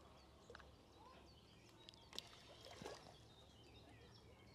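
Near silence: faint outdoor ambience with small, scattered bird chirps and a couple of faint clicks a little over two and three seconds in.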